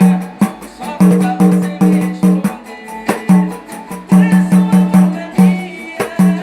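Pandeiro played in a pagode groove: a run of deep, ringing bass-tone strokes on the head mixed with crisp jingle hits in a steady rhythm, with the song's music behind it.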